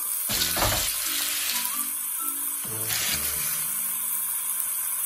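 Food sizzling in a hot wok as chunks of raw squash go in on top of sautéed onions and tomatoes, with one louder knock about half a second in, under background music playing a simple melody.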